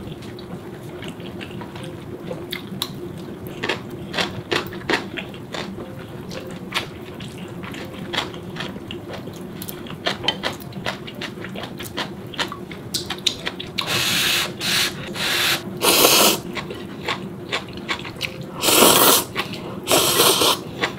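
Close-up eating sounds: wet chewing and small clicks of chopsticks and spoon, then a run of long, loud slurps of ramen noodles and broth in the last seven seconds. A faint steady hum underneath.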